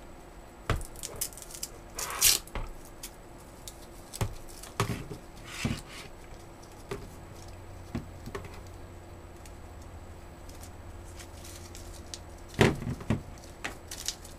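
Laptop power cord being unwrapped from its Velcro strap and handled along with the AC adapter brick on a desk: scattered rustles, clicks and light knocks, the loudest about two seconds in and again near the end.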